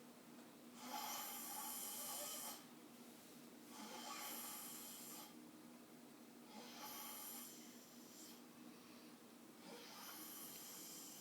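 A man snoring in his sleep: four faint snores, each one to two seconds long, coming about every three seconds.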